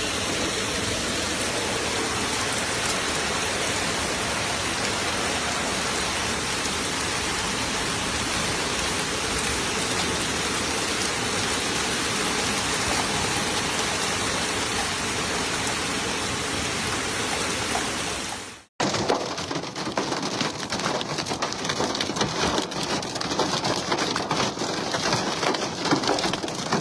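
Heavy rain falling in a steady downpour. About two-thirds of the way through it cuts abruptly to another recording of rain, with denser, sharper pattering on hard surfaces.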